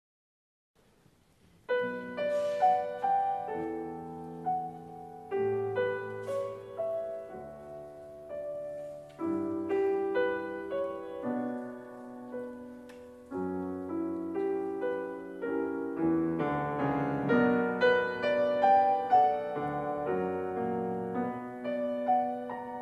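Solo piano music, coming in about two seconds in after a moment of silence, with ringing notes and chords that fade as they are held.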